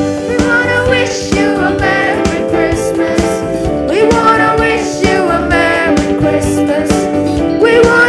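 Boys' choir singing into stage microphones, accompanied by keyboard and acoustic guitar.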